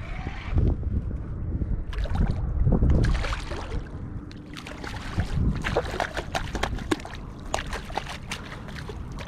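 Water sloshing and low thuds, then a run of sharp splashes in the second half as a hooked stingray thrashes at the surface beside a kayak.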